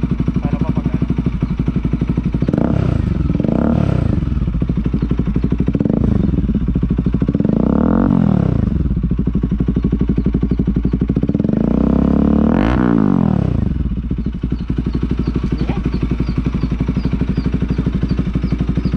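Motorcycle with an SC-Project muffler, its silencer insert out, idling and then revved in several short throttle blips, the longest about twelve seconds in, settling back to idle after each. Very loud.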